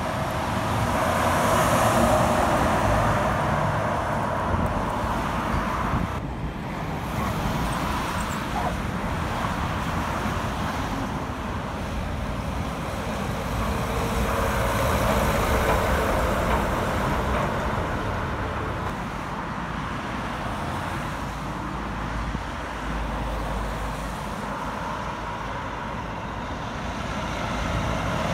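Heavy diesel trucks passing one after another: a Mercedes-Benz Actros truck and trailer, then an Iveco tipper truck and trailer. Engine and tyre noise swells and fades as each goes by, loudest about two seconds in and again around the middle.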